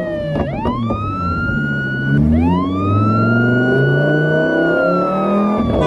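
High-revving car engine accelerating: the pitch climbs fast and levels off, drops sharply about two seconds in as if at a gear change, climbs again, then slowly falls away. Music with a bass line plays underneath.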